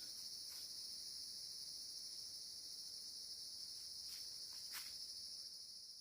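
Steady, high-pitched chorus of forest insects, with a few faint clicks or snaps.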